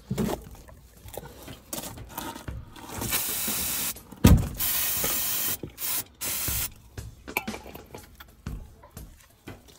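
Aerosol spray can sprayed onto a brake caliper in several hissing bursts, the longest over a second, with one sharp click between the first two bursts.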